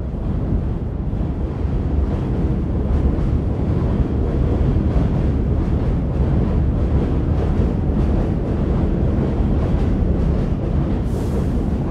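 R46 subway train pulling out of the station past the platform, a loud steady rumble of the cars running by with faint clicks from the wheels. The rumble builds over the first couple of seconds and then holds, with a short hiss near the end.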